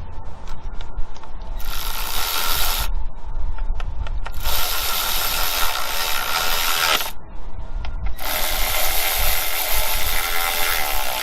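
A power tool runs in three bursts of a few seconds each, the last one the longest, driving bolts during engine reassembly.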